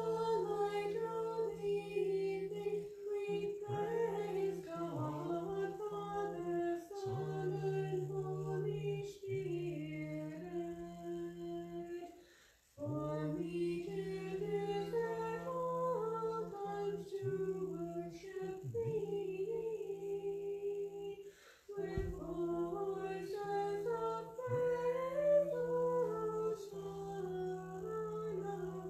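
Unaccompanied Orthodox liturgical chant: a sung melody moves over a steady low drone note, in phrases with short breaks for breath.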